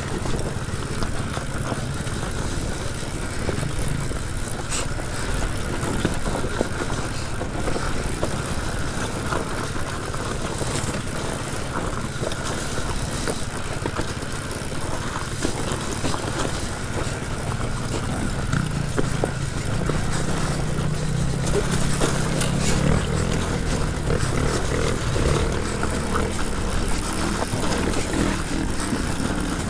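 2018 KTM 300 TPI fuel-injected two-stroke dirt bike engine running under way off-road, its pitch rising and falling with the throttle and climbing higher about twenty seconds in. Short knocks and clatter are scattered through it.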